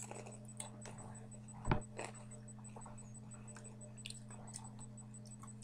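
Quiet room tone with a steady low electrical hum, scattered faint clicks, and one dull thump a little under two seconds in, typical of a webcam or laptop being handled.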